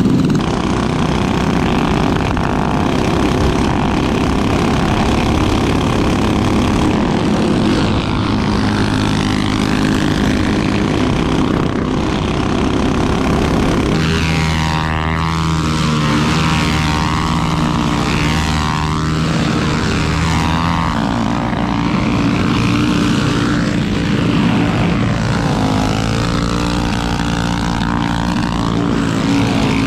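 Small single-cylinder mini bike engines running under way, a steady engine note whose pitch shifts as the throttle changes, with a clear change in the note about halfway through.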